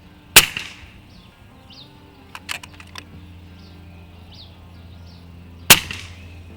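Two sharp air-rifle shots from an FX Dreamline Classic .22 PCP air rifle, about five seconds apart, each with a brief ringing tail, with a few lighter clicks between them, over background music.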